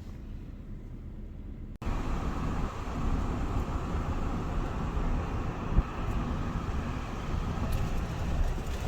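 Steady rumble of a car driving. It is quieter for the first two seconds, then breaks off abruptly and comes back louder.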